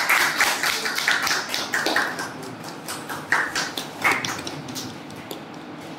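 A small group clapping by hand. It is dense at first, thins to scattered claps after about two seconds and dies away near the middle.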